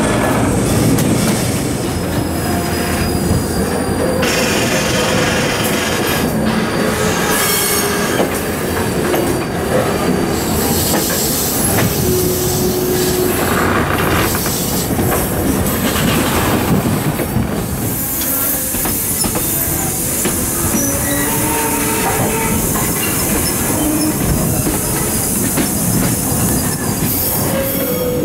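Passenger train running on the rails, heard from an open carriage window: a steady rolling rumble and rattle of the wheels, with thin squeals of the wheels coming and going.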